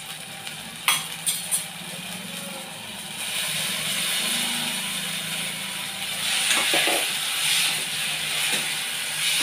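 A steel slotted spoon clinks against a stainless steel pan a few times. About three seconds in, fried potato and ivy gourd pieces are tipped from a plastic bowl into the hot masala and stirred, with a steady hiss and the spoon scraping the pan.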